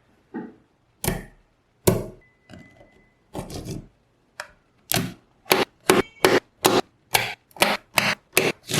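Magnetic balls clicking as they snap together: a few scattered sharp clicks at first, then a steady run of about two clicks a second in the second half.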